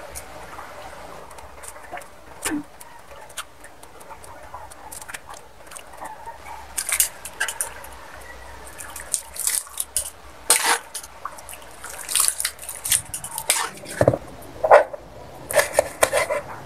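Egg noodles boiling in a wok of water and being stirred with metal tongs: bubbling, sloshing water, with sharp clicks and scrapes of the tongs on the wok coming in from about halfway through.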